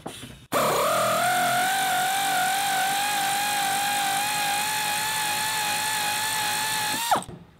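A handheld power tool runs steadily for about six and a half seconds, turning a seat-mounting bolt in a pickup's floor. Its whine rises in pitch as it spins up, holds with a slight wobble, then drops as it stops. The bolt keeps spinning without coming out, because the nut underneath turns with it.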